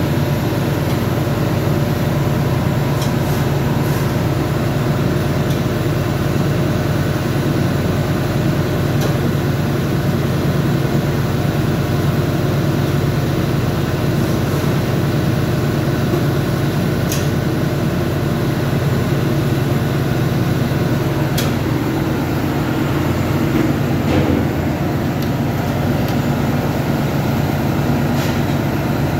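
Steady loud drone of running machinery in a ship's engine room, with a low hum and a few short clicks scattered through it.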